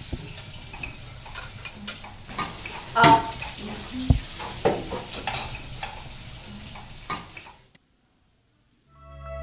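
Dishes and cups clinking and knocking at a kitchen sink over a steady hiss. It cuts off suddenly near the end, and soft music starts just as it closes.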